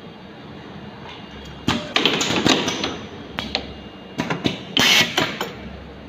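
USB Type-C cable soldering machine running with a steady hum. From about two seconds in, its pneumatic cylinders and fixtures clack and click in a quick irregular run, with a short burst of air hiss about five seconds in.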